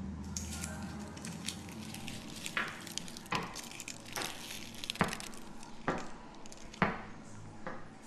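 Slow, evenly paced footsteps on a hard floor, about one step a second, starting a couple of seconds in, over a faint background hiss.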